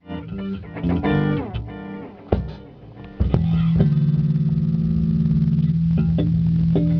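Band rehearsal with electric guitar and bass guitar: scattered plucked notes, some sliding down in pitch, for the first three seconds, then a low note held steadily with a few plucked notes over it.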